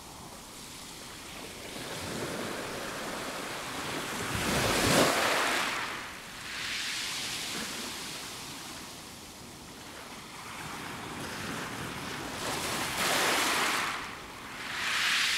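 Small waves washing onto a fine pebble beach, fading in at the start. The waves swell and draw back in a slow rhythm, loudest about five seconds in, with further surges near the end.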